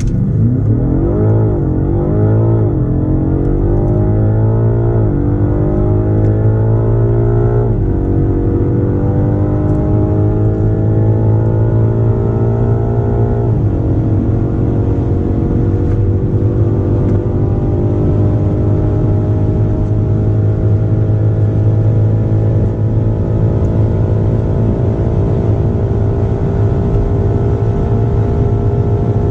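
Twin-turbo V8 of a high-performance sedan accelerating flat out, its pitch climbing through each gear and dropping sharply at every upshift, with the gears getting longer as speed builds. The pitch wavers quickly in the first few seconds, then runs to a long final pull.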